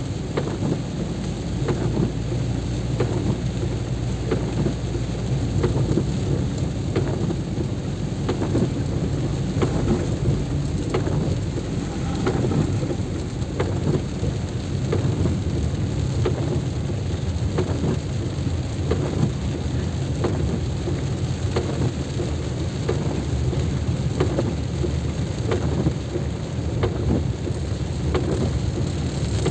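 Heavy rain, with drops tapping close to the microphone over a steady low rumble.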